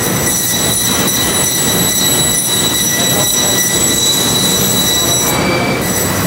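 Machinery in a meat-cutting room giving a steady high-pitched whine over a low hum. A faint regular scraping runs about four strokes a second through the first half. The whine drops out for about half a second near the end.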